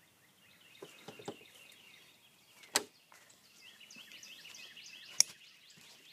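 A nylon knife sheath being handled and folded on a table: light knocks and rustling, with two sharp clicks, one a little under three seconds in and one about five seconds in. Birds chirp faintly in the background.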